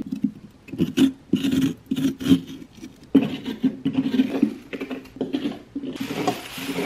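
A spoon scraping out the inside of a fresh pumpkin, with repeated irregular rasping strokes as the stringy pulp and seeds are scooped from the walls.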